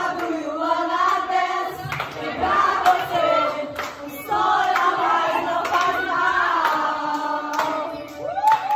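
A group of women's voices singing together at close range, holding long notes, with a few sharp claps or knocks cutting through.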